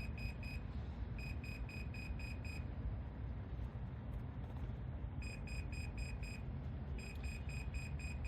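Rocket flight-computer altimeter beeping out its recorded altitude in short, evenly spaced high beeps: a group of five, then a group of six, for 56 feet. After a pause of a few seconds the five-and-six sequence repeats, over a steady low background rumble.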